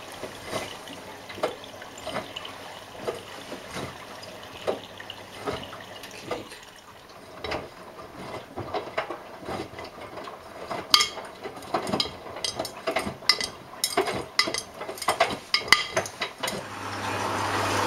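Miele Navitronic front-loading washing machine tumbling a load of wet work clothes in the prewash: water sloshing in the drum with irregular knocks and clatters as the laundry drops, thicker and louder in the last several seconds. Near the end a steady low hum sets in.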